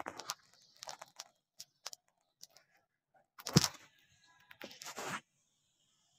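Irregular rustling and crunching noises, with one louder thump about three and a half seconds in and another short cluster of rustles near five seconds; after that only a faint steady high hiss.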